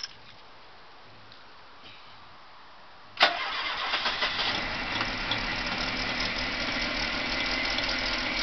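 1985 Ford Capri's newly fitted engine starting: a couple of clicks from the ignition key, then about three seconds in it catches abruptly and settles into a steady idle. Its ignition timing advance is not yet set.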